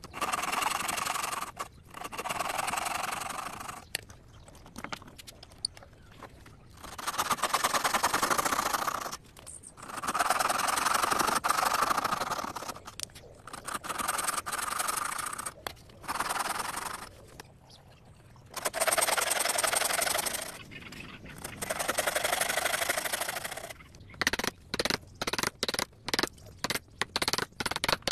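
Hand saw cutting into a clamped wooden block in runs of quick strokes, each run a second or three long with short pauses between. Near the end, a chisel is struck repeatedly into the wood, giving a string of sharp knocks.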